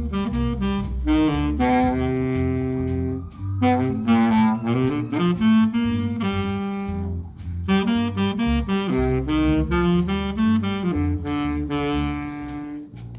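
A big band playing jazz live, with the saxophone section carrying the melody in phrases of about four seconds over steady low notes.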